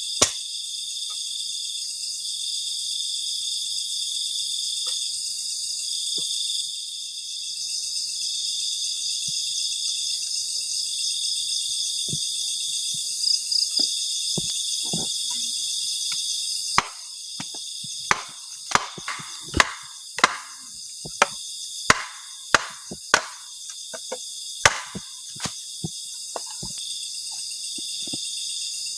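Crickets and other insects chirping in a steady, high, pulsing chorus. From a little past halfway, a run of about a dozen sharp knocks comes roughly once or twice a second, then stops a few seconds before the end.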